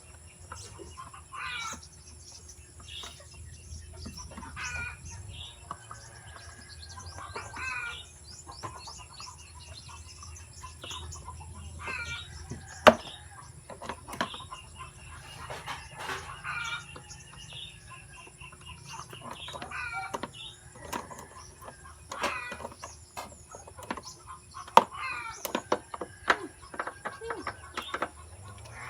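Short, repeated bird calls, one every second or two, over a low steady hum, with a few sharp clicks, the loudest about halfway through.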